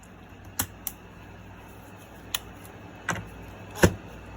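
Five short, sharp clicks and knocks spread over a few seconds, the loudest near the end.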